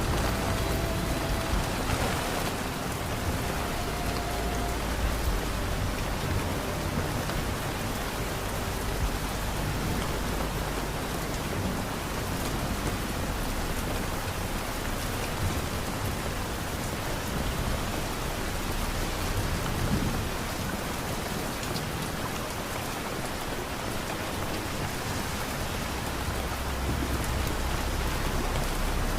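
Steady rain falling, an even hiss, with a low rumble of distant thunder near the start and again in the last few seconds.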